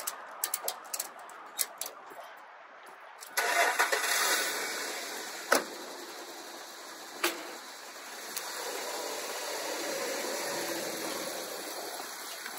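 A series of sharp clicks as the trailer's ratchet strap is worked, then a pickup truck's engine starts suddenly about three seconds in and settles to running, with two sharp knocks a few seconds later. Near the end the engine runs louder and fuller as the truck pulls the boat trailer up the ramp.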